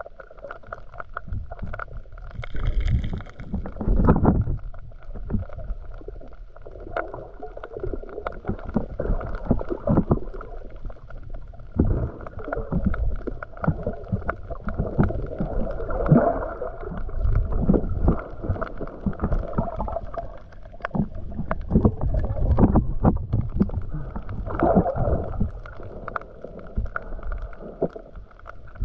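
Muffled underwater sound recorded with the camera below the surface: low rumbling water movement from swimmers, with many small clicks and pops.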